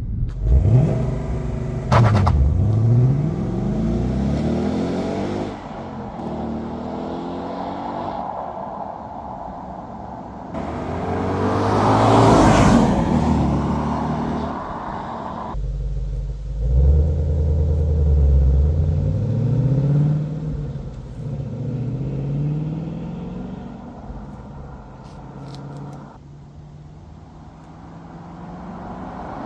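Ford Mustang GT V8 on its stock exhaust, before an H-pipe is fitted, accelerating and easing off in a series of short clips. The engine note rises and falls over and over.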